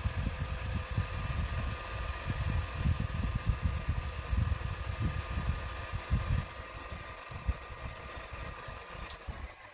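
Electric heat gun running: a steady fan whine over a fluctuating low rumble of the air stream, switched off at the end. It is heating foamiran petal tips to soften them for shaping.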